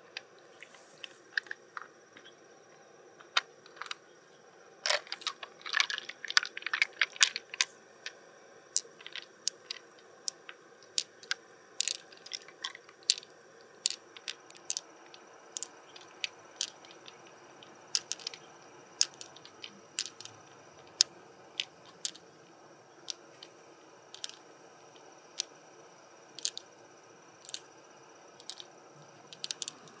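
Sharp clicks and wet crunching from a pearl mussel being opened and its pearls handled. A dense run of crunches comes about five to seven and a half seconds in, then single clicks every second or so.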